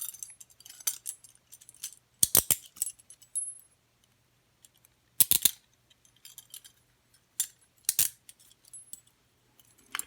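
Steel handcuffs being handled: sharp metallic clinks and clicks, about six in all, spaced a second or two apart, each with a short high ring.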